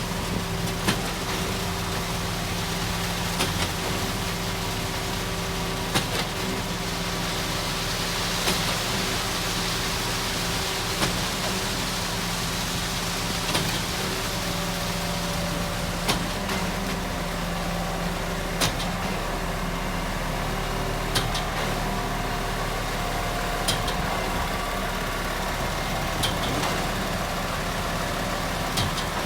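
Concrete mixer truck's diesel engine running steadily, with a short sharp knock about every two and a half seconds.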